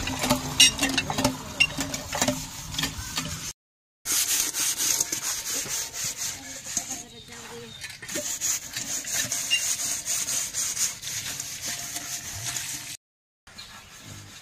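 Water from a hand pump pouring into an aluminium pot for the first few seconds. Then, after a cut, a blackened cooking pot is scrubbed by hand in quick, rasping strokes.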